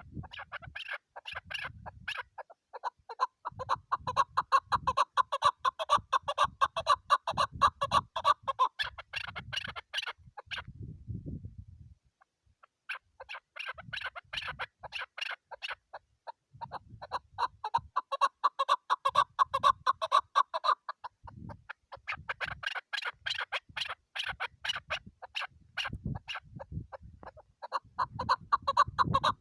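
Chukar partridge calling: long runs of rapid, repeated clucking notes, broken by brief pauses.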